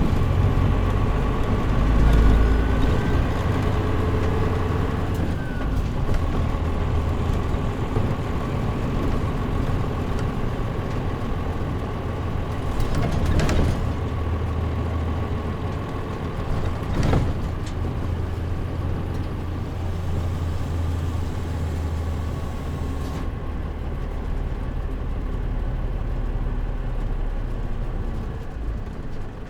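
Interior running sound of a Mitsubishi Fuso KL-MP37JM non-step city bus under way: steady diesel engine drone with road and tyre noise, and two brief knocks about 13 and 17 seconds in. The sound gets a little quieter near the end.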